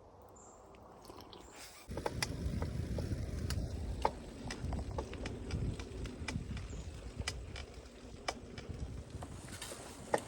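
Folding bike being ridden, a steady low rumble of tyres and wind with scattered clicks and rattles, starting abruptly about two seconds in.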